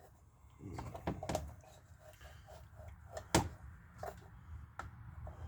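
Handling noises from working on a McCulloch Mac 3200 chainsaw: scattered sharp clicks and knocks, the loudest about three and a half seconds in, with a short low rustle near the start.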